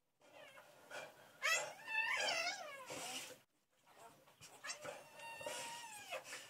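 Newborn Saint Bernard puppies crying while they nurse: high, wavering, meow-like squeals, a long bout about a second and a half in and another near the end.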